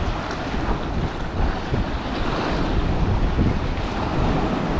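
Gusty wind buffeting the microphone over waves breaking and washing on the rocks, an uneven rushing noise heaviest in the low end.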